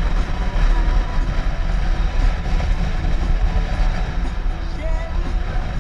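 Wind and engine rumble on a moving touring motorcycle, with music playing faintly underneath.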